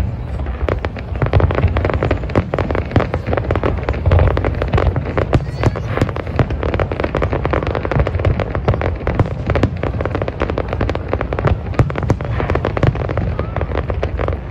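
Aerial fireworks display: many sharp bangs and crackles in quick succession over a constant low rumble of distant bursts.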